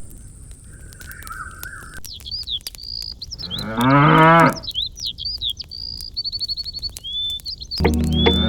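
A cow moos once, loudly, about four seconds in, over birds chirping. Music begins near the end.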